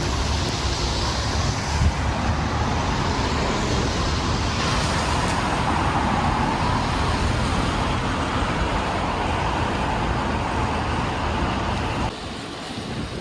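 City road traffic: motor vehicles passing, the noise swelling as one goes by in the middle, then dropping away sharply near the end.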